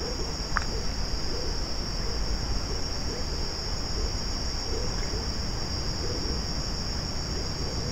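Steady chorus of night insects such as crickets: an unbroken high-pitched trill at an even level.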